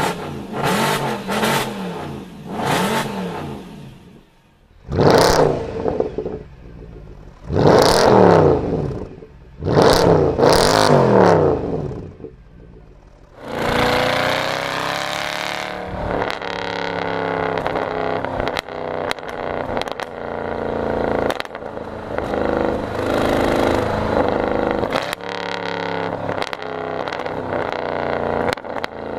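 Mercedes-AMG M156 6.2-litre naturally aspirated V8 with the secondary cats and resonators deleted, revving up and back down in four short bursts, then running under way at a steady pitch close to the exhaust tips, with a scatter of sharp cracks.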